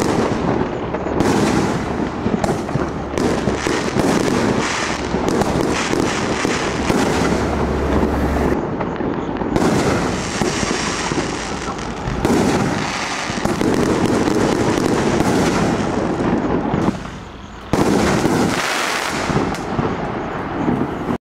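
A 500-gram consumer fireworks cake firing its 2-inch shells: repeated sharp bangs of shells bursting, with dense crackling filling the gaps, and a brief lull about 17 seconds in.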